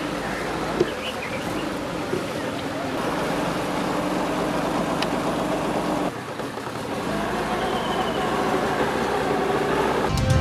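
An engine running steadily under outdoor noise, with faint voices. The sound changes abruptly at a cut about six seconds in.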